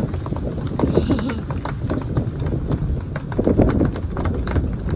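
Strong thunderstorm wind gusting across the microphone, a heavy rumble that swells and eases, with scattered sharp ticks throughout.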